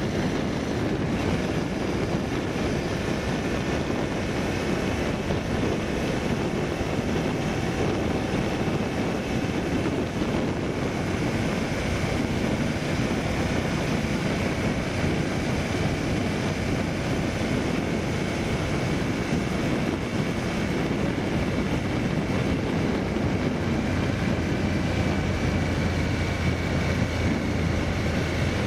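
Motorcycle under way at a steady pace: engine drone mixed with a constant rush of wind and road noise.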